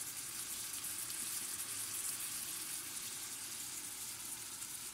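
Beef heart chunks in a paprika and turmeric sauce sizzling steadily in a pan, an even high hiss.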